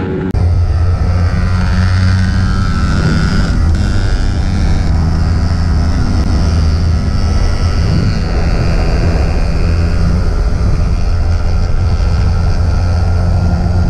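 Small sport motorcycle's engine running steadily at road speed, heard from on the bike over rushing air and road noise. There is an abrupt jump in level just after the start.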